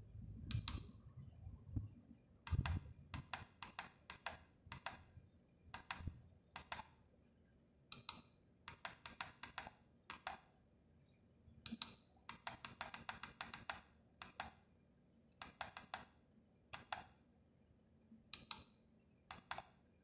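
Plastic push-buttons on a Continental CD5408 car radio's front panel clicking as they are pressed, one at a time and in quick runs, to key in the radio's four-digit security code.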